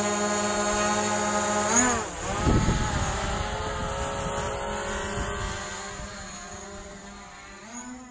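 Quadcopter drone's propellers whining in a steady many-toned hum as it hovers. About two seconds in, the pitch swoops up and dips as it climbs away, with a brief low buffeting rumble, then the hum slowly fades as it flies off.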